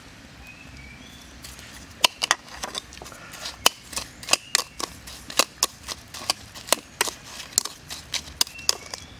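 A spoon clicking and scraping against a plastic bowl as dry sugar and salt are stirred together, in quick irregular ticks of about three a second that start about two seconds in.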